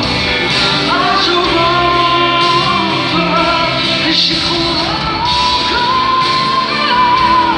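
Live concert music: a woman singing long, held notes over a full band, with the echo of a large arena.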